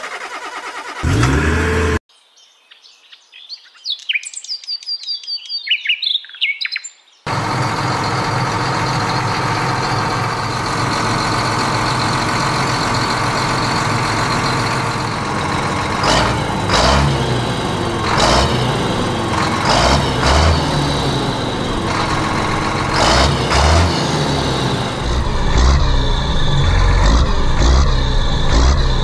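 A tractor engine sound, laid on as an effect, runs steadily, with several brief louder swells in the second half. It cuts out for about five seconds, from about two seconds in, while small birds chirp.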